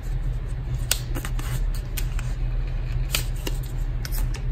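Paper handling: a thin cardboard sleeve being opened and a stack of photocards slid out of it, with soft rustling and several small sharp clicks of card stock, over a steady low hum.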